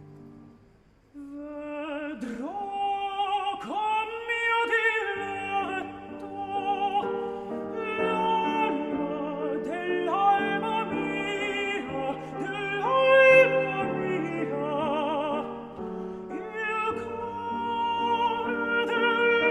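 Background music: an operatic-style solo voice singing with a wide vibrato over sustained accompaniment. It comes in about a second in, after a brief quiet.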